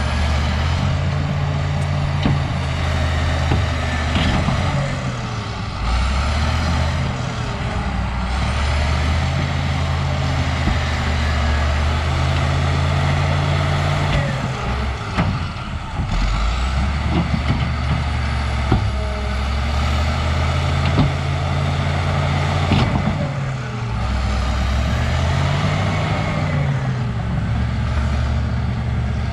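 Caterpillar D6H bulldozer's diesel engine working under load, its pitch dropping and climbing again every few seconds, with occasional sharp clanks.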